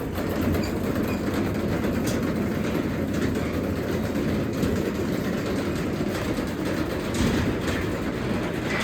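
Craftsman 3/4 hp garage door opener running steadily as it closes the garage door: a loud, even drive-motor rumble with occasional clicks and rattles from the moving door.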